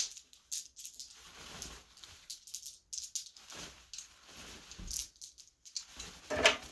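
Irregular rattling and clicking, like small hard objects being shaken or handled, with a louder clattering burst near the end.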